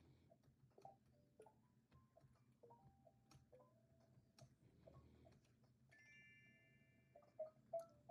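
Near silence: faint scattered ticks and a few soft, brief chime-like tones over a quiet room tone.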